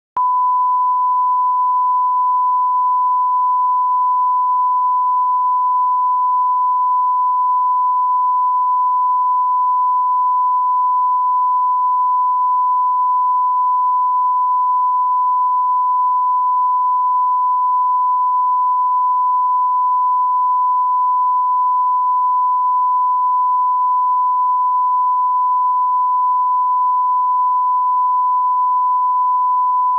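Broadcast line-up test tone: a single steady pure tone, unbroken and at one pitch and level throughout. It is the reference tone that goes with colour bars, used to set audio levels before a programme.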